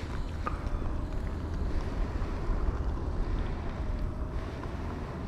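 Wind buffeting the microphone: a steady low rumble with a noisy hiss over it, and a faint wavering tone in the background.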